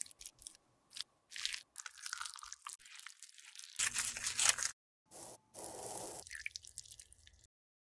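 Close-miked crunching and scraping of pressed makeup being broken up and worked with tweezers and a metal spatula: first a scatter of short crackles and clicks, then longer gritty scraping passages that cut off abruptly, twice.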